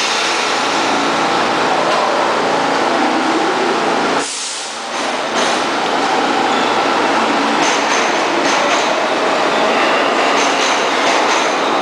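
R46 subway train running past the platform: a steady, loud rumble of steel wheels on rail with rail-joint clatter, briefly quieter about four seconds in, with faint high wheel squeals in the second half.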